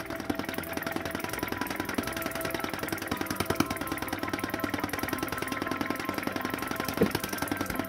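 Gas-fired Böhm-design flame-eater (vacuum) model engine running steadily, its steel piston and valve gear ticking rapidly, about ten times a second. One sharper click comes near the end.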